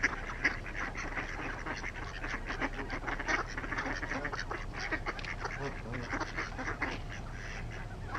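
A flock of ducks quacking, with geese honking among them: many short calls overlapping without a break.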